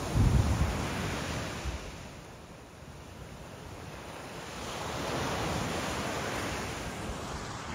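Surf washing in, a steady rush that swells and fades, with wind buffeting the microphone in low bumps during the first second.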